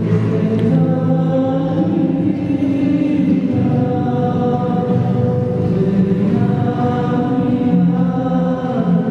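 Choral singing, slow, with long held notes.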